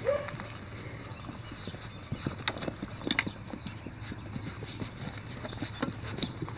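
Scattered light clicks and taps of golden retriever puppies' paws and claws, and a person's boots, moving on wet pavement.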